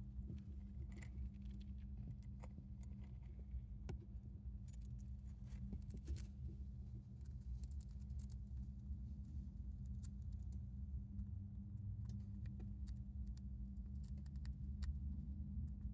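Hamster drinking from a water bottle's spout, making many small, irregular clicks and ticks, over a steady low hum.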